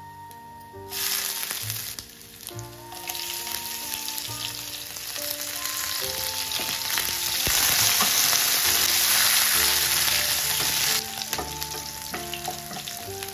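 Chopped ginger, then green chillies and curry leaves sizzling as they go into hot ghee with cumin and pepper, a tempering being fried in a nonstick pan. The sizzle starts about a second in, swells after another addition a couple of seconds later, is loudest in the middle, and drops off sharply a couple of seconds before the end.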